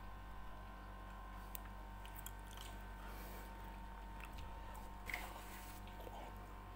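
Faint eating sounds: soft chewing and small clicks as food is picked by hand from a plastic plate, over a steady low electrical hum.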